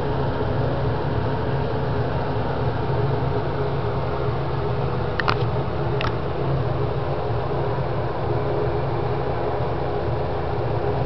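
Bathroom exhaust fan running steadily, a low hum with a hiss over it, with two short clicks a little past the middle.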